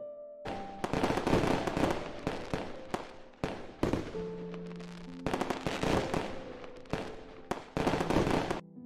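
Fireworks bursting and crackling, with a sharp bang every second or so. It starts about half a second in and stops just before the end.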